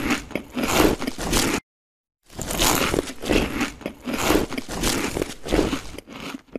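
Paper fast-food bag crinkling while someone bites and chews, in a series of irregular noisy crunches. It cuts to dead silence for about half a second a little over a second and a half in, then resumes.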